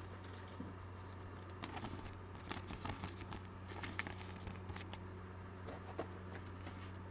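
Faint scattered clicks and rustles of a trading card being handled in the fingers, over a steady low hum.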